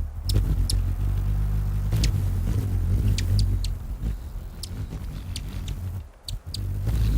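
Hummingbird wings humming close by as the bird hovers and darts, with short high chip calls over the buzz. The hum cuts out briefly a little after six seconds in, then returns.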